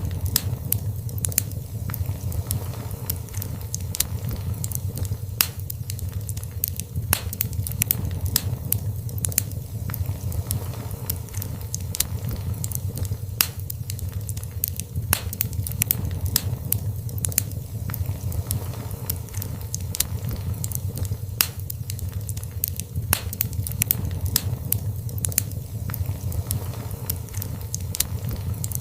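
Wood fire burning in a fireplace, crackling steadily: many sharp, irregular pops and snaps over a low, steady rumble of the flames.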